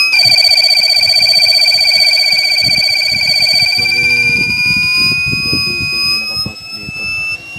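Pure sine wave inverter's fault alarm buzzer sounding a loud, continuous high-pitched tone, warbling for the first few seconds, then steady, and cutting off near the end: the inverter has gone into error.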